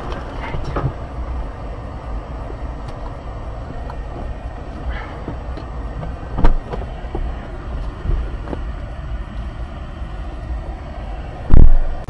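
Steady low rumble inside the cabin of a car that has just crashed, with scattered knocks and clicks as things move about; a sharper knock comes about halfway, and a loud thump near the end.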